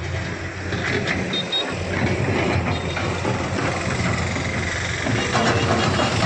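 Komatsu excavator's diesel engine running steadily as the machine digs soil, getting a little louder about five seconds in.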